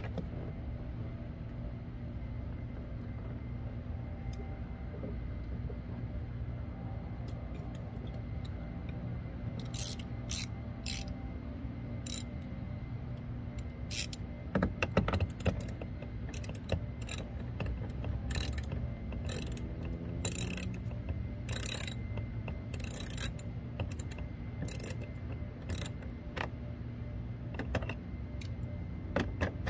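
Irregular sharp clicks and ticks of a hand tool working the fasteners of a car's rear door panel as it is being removed. They start about ten seconds in, over a steady low hum.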